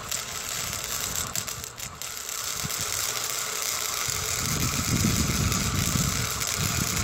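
Electric arc welding on the steel barn-door track: the arc gives a steady crackling sizzle with some sharper crackles in the first couple of seconds.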